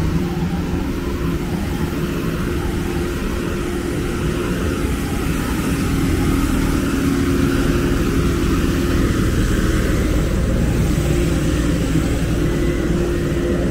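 Road traffic: a motor vehicle's engine running with a steady low hum over the rumble of passing cars, swelling a little midway.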